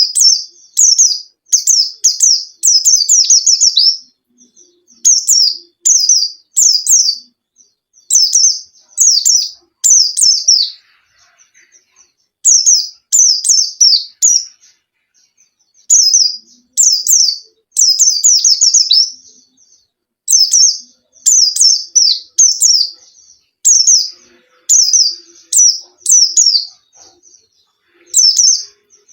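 A white-eye (pleci, Zosterops) singing vigorously: short bursts of quick, high, downward-sliding notes, repeated phrase after phrase with brief pauses between.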